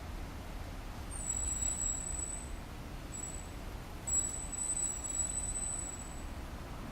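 Common kingfisher calling: three thin, very high whistles, the first and last each drawn out for over a second, with a short one between, over a steady low rumble.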